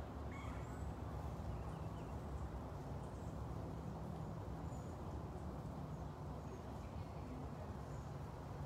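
Quiet outdoor ambience: a low, steady rumble with a few faint, short, high chirps now and then.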